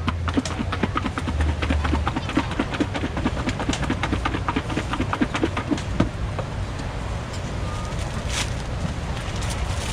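Kitchen knife chopping quickly on a cutting board, several strokes a second, thinning out to a few scattered knocks after about six seconds.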